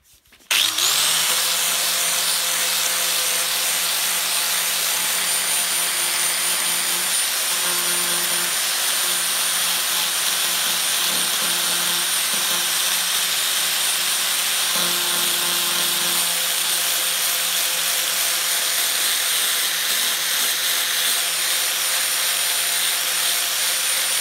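Electric angle grinder fitted with a sanding disc spinning up about half a second in, then running steadily with a high whine as it grinds a groove along a crack in fibreglass.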